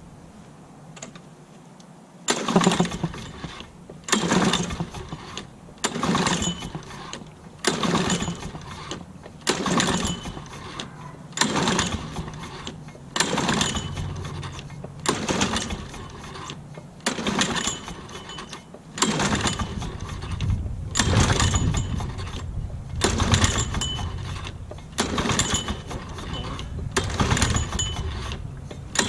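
Recoil starter of a 1986 Lawn-Boy 8461's F-series two-stroke engine being pulled over and over, about one pull every second and a half to two seconds, with the engine on full choke cranking without catching.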